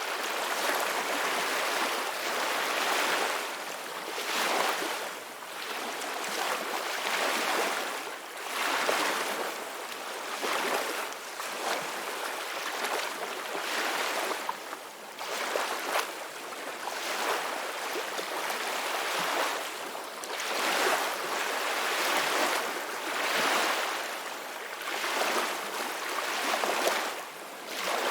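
Ocean waves breaking and washing onto a shore, a continuous hiss of surf that swells and ebbs every couple of seconds.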